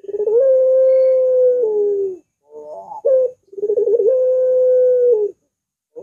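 Barbary dove (puter) cooing: two long, curving coos, each opening with a quick rolling flutter and then held on one steady note before dropping at the end, with a short coo between them.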